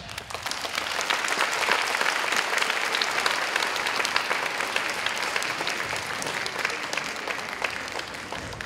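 Audience applauding: a dense crowd clapping that swells just after the start, then slowly dies away.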